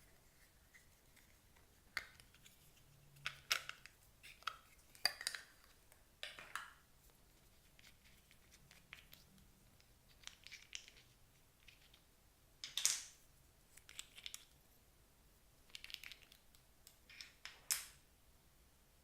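Clear slime being worked by hand, giving irregular short crackling pops and clicks in scattered clusters, a few of them sharper and louder.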